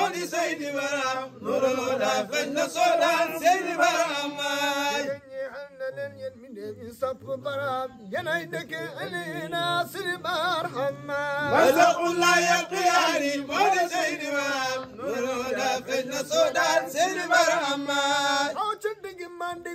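A man chanting an Arabic devotional Mawlid poem in long melismatic phrases, his voice wavering through ornaments and pausing briefly between lines.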